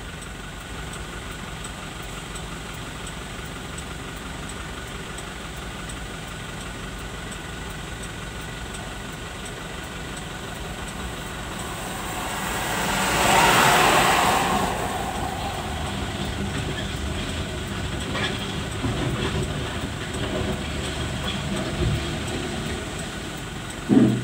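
Wheel loader's diesel engine running steadily. About 13 seconds in, a louder, noisy swell builds for a couple of seconds and fades. A few knocks and clanks follow near the end.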